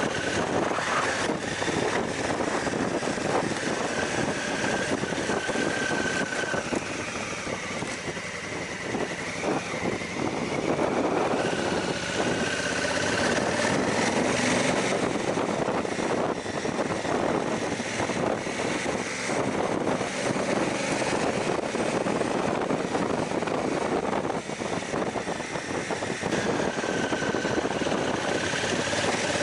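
Honda Africa Twin's parallel-twin engine running while riding on a gravel track, its pitch dipping and rising with the throttle, under a steady rush of wind noise and many small ticks from gravel under the tyres.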